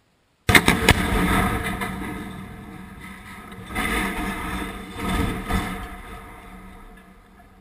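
Demolition charges detonating in an old mining structure: a sudden volley of sharp blasts about half a second in, then a long rumble from the fireball. The rumble swells twice more, about four and five seconds in, then fades.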